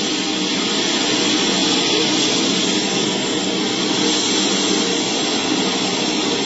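Sea waves roaring: a steady, unbroken rush of surf.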